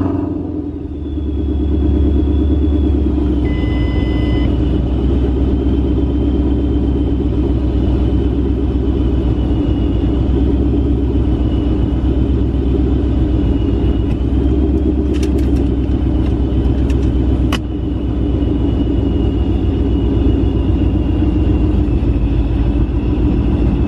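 Coyote 5.0 L V8 in a swapped Mustang, breathing through a Corsa Xtreme exhaust, idling loud and steady just after being started, with a deep rumble and no revving. A faint high steady whine sits over it, with a short beep about four seconds in and a sharp click later.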